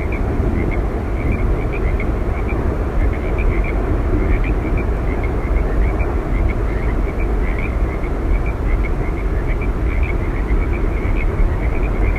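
Steady roar of Yosemite Falls' falling water, even and unbroken, heaviest in the low rumble. Faint short high chirps are scattered through it.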